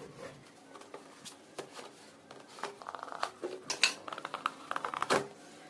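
A cloth wiping the inside of a Honda CD 70's rubber air-intake boot: a run of short, squeaky rubs about halfway through, among small knocks and handling noises.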